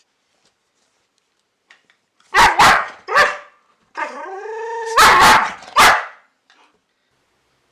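Boxer dog barking: three quick barks, then a drawn-out whine about a second long that rises and then holds its pitch, then a few more barks.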